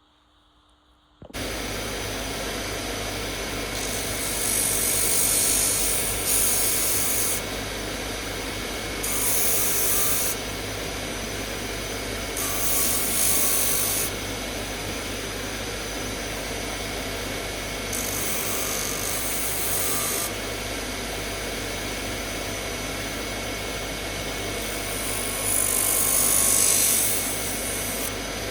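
An electric power tool switches on about a second in and runs steadily. Five times it bites into the work for a few seconds, giving a louder, hissing, rubbing sound of abrasive sanding or grinding.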